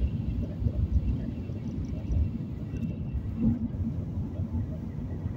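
Low, steady rumble of a moving vehicle heard from inside the cabin, with irregular soft thumps and swells.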